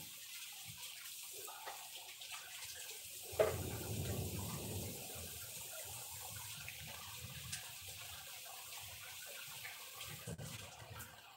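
Heavy rain falling and splashing on a paved street, a steady hiss, with a single thump about three and a half seconds in.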